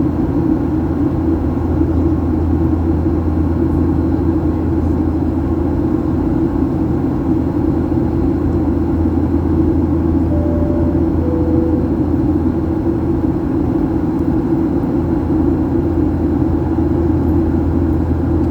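Steady roar of a jet airliner's engines and airflow, heard from inside the passenger cabin in flight. About ten seconds in, a two-note descending cabin chime sounds.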